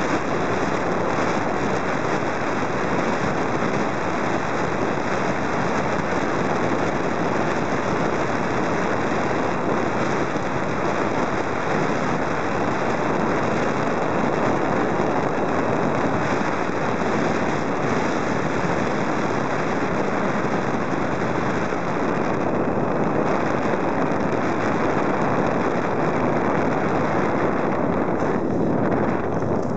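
Steady rushing noise of airflow and motor picked up by a camera riding on a model airplane in flight, an even hiss with no clear tone.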